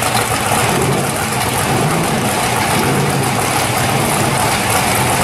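Drag-race engines of a 1941 Willys coupe and a 1969 Chevelle idling together at the starting line: a steady, loud engine rumble.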